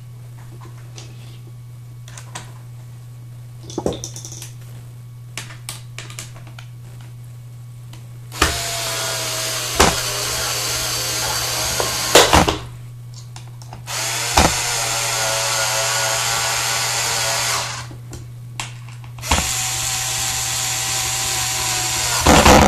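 Cordless drill-driver driving in the screws of a power brush's bottom plate: three runs of a steady motor whine, a few seconds each, starting about eight seconds in. Before them, a few light clicks and knocks as the screws are set.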